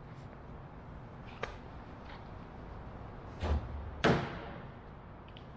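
A light tap, then a dull thud and a sharper knock about three and a half and four seconds in, as hand tools are set down and handled against the plywood fuselage, over steady shop room noise.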